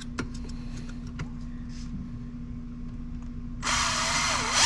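A few light clicks of handling, then about three and a half seconds in an electric drill starts up and runs, drilling a hole, its whine dipping and then rising in pitch as it bites.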